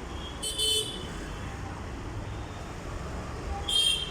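Road traffic rumbling steadily, with two short high-pitched toots, one about half a second in and one near the end.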